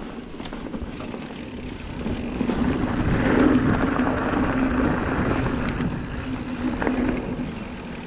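Mountain bike rolling along a trail, with tyre and rushing noise on the camera. A steady hum swells about two seconds in and fades again near the end.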